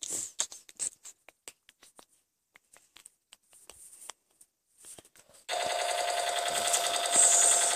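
Scattered light clicks and taps, then from about five and a half seconds in a loud, steady, rapid buzzing rattle: a toy machine gun's electronic firing sound.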